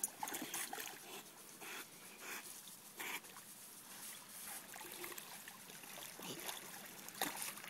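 Rottweiler swimming: faint water sloshing and small irregular splashes around the dog as it paddles.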